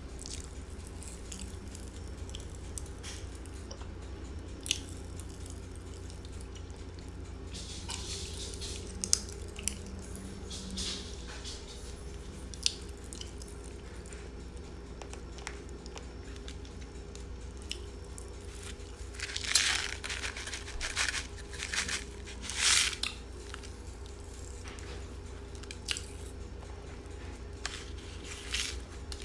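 Pop Rocks popping candy crackling and being crunched in the mouth close to the microphone: scattered sharp pops between bursts of crunching and chewing, the loudest bursts about two-thirds of the way through. A steady low hum runs underneath.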